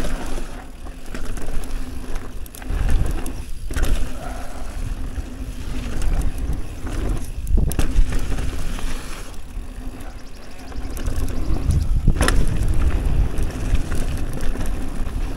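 Commencal Meta TR mountain bike riding down a dirt trail: continuous rumbling tyre and ground noise with frequent knocks and clatter from the bike, and one sharper knock about twelve seconds in. Wind buffets the action camera's microphone.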